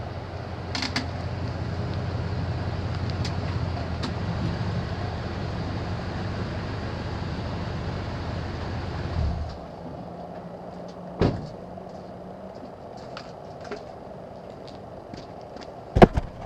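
2010 Toyota Tundra CrewMax pickup with a steady low hum that cuts off about nine and a half seconds in. A sharp click follows, then scattered faint ticks and a cluster of loud clicks near the end. This is the kind of clicking the owner is asking about.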